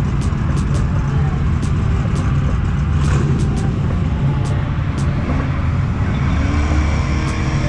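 Car engine running steadily with a low rumble, faint regular ticks over it.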